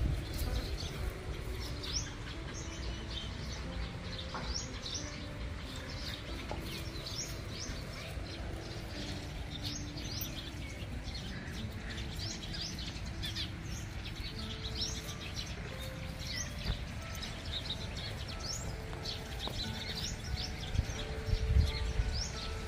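Small birds chirping: many short, high chirps repeating throughout, over a low rumble.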